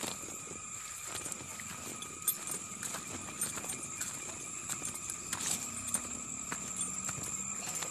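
Footsteps walking along a dirt-and-gravel path, an irregular run of soft steps, over a steady high-pitched insect drone.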